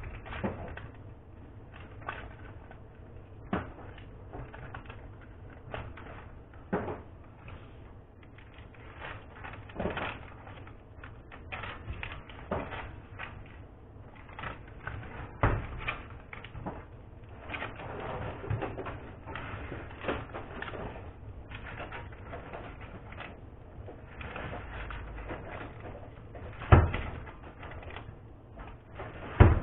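Irregular taps, clicks and crinkling of hands at work wrapping a chocolate tray in foil and cellophane with tape, with one louder knock about 27 seconds in.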